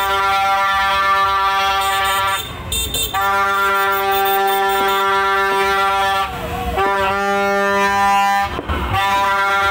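A horn blown in long, steady single-pitch blasts of two to three seconds each, four in a row with short breaks, the pitch wavering briefly between the second and third.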